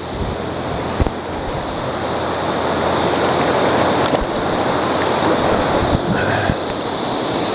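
Steady rush of flowing river water, with a single sharp knock about a second in.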